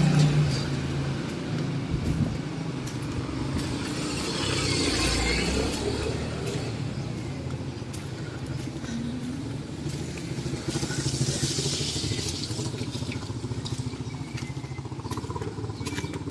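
Road traffic passing close by: motor vehicles going by over a steady street hum, with louder passes about four to six seconds in and again around eleven to thirteen seconds in.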